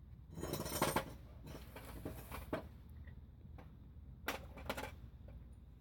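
Hands handling metal exhaust parts and gaskets: a short scraping rustle about half a second in, then a few light metallic clicks and clinks.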